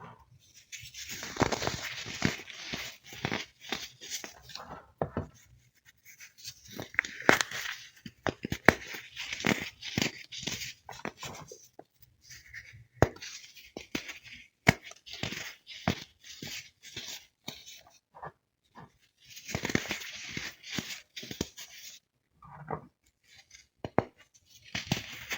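Crispy baking-soda chunks being broken and crumbled, crackling and crunching in runs of a few seconds, with single sharp snaps in between.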